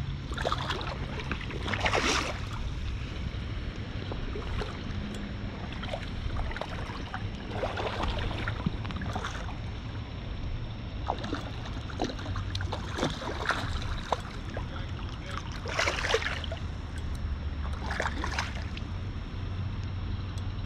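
Wind rumbling on the microphone over flowing river water, with brief swishing, rustling noises every few seconds.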